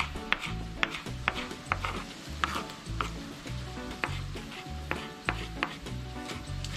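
Kitchen knife chopping scallion and garlic on a wooden cutting board, sharp taps about twice a second, over background music with a steady bass line.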